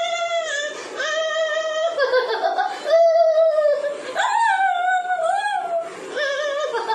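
A woman's high-pitched voice drawing out a string of long notes, each about a second long, with short breaks between; some hold steady while others slide down or waver.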